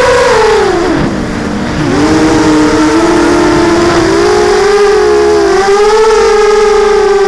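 Brushless motors and propellers of a ZMR250 racing quadcopter (DYS 1806 motors, Gemfan 5040 props) whining, heard loud from the quad's own onboard camera. The pitch drops sharply about a second in as the throttle comes off, then climbs back with small wavers and holds steady as the quad flies level.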